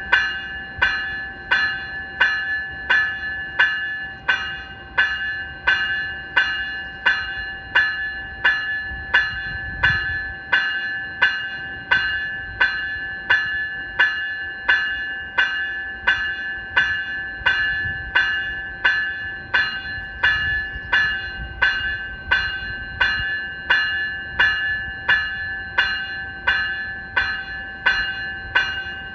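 Graham-White electronic bell on an NCTD Coaster cab car ringing steadily, about five strikes every three seconds, each strike leaving a bright ringing tone that carries into the next.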